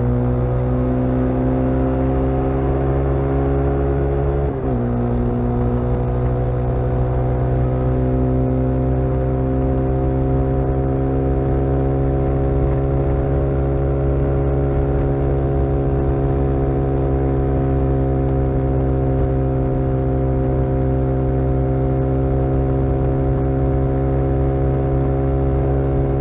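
Honda CBX 250 Twister's single-cylinder four-stroke engine running under way through an aftermarket Roncar exhaust, giving a mild rumble. The pitch climbs under throttle, drops sharply with a quick upshift about four and a half seconds in, then holds a nearly steady cruising note.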